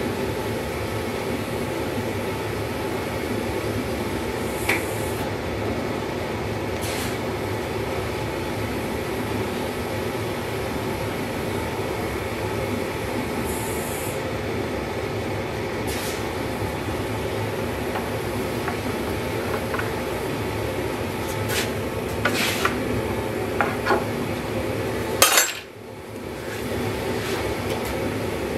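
Gas forge burner running with a steady roar while a steel sword blade is heated for hardening, with occasional light metallic clinks of the blade against the forge. A cluster of clinks comes near the end, then one loud knock, after which the steady roar briefly drops.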